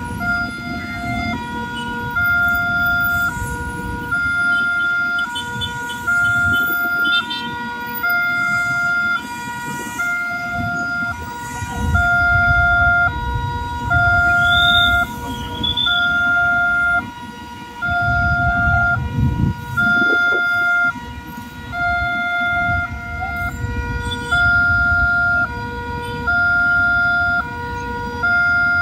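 Level-crossing warning alarm sounding continuously, a repeating pattern of alternating electronic tones at about one tone a second. Motorcycle engines and traffic rumble underneath, louder around the middle.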